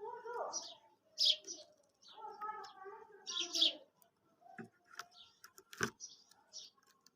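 Quail calling: a run of short, high chirps repeated throughout. Lower warbling calls come in two spells, at the start and from about two seconds in. A couple of sharp clicks follow near the end.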